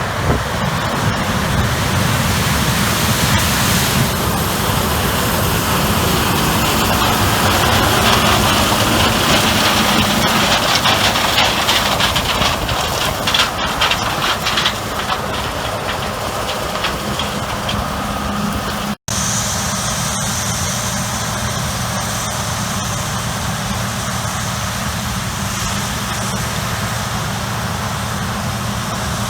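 Combine harvester running in a corn field, a steady engine hum under heavy wind noise on the microphone. The sound breaks off abruptly about two-thirds through, after which a steadier engine hum with a faint high whine continues.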